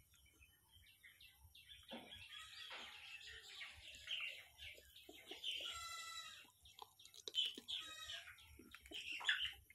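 Chickens clucking and calling in the background, over the close-up mouth sounds of someone chewing food.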